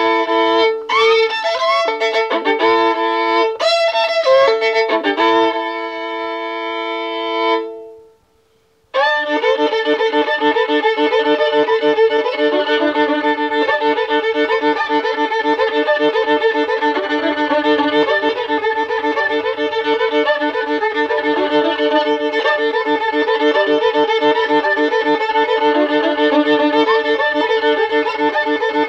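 Solo fiddle playing a droning tune in double stops with quick repeated bow strokes. It breaks off about eight seconds in, is silent for under a second, then starts again with fast, steady bowing.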